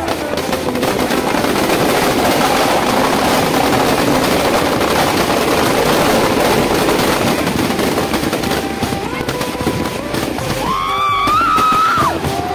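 Firecrackers packed inside a burning effigy going off in a dense, rapid rattling crackle, with the noise of a large crowd under it. Near the end a loud wavering cry or whistle rises over the crackle.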